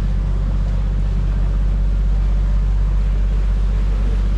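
Canal tour boat's motor running steadily, a low, even hum.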